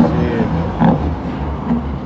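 Heavy truck's engine running under short snatches of a man's voice.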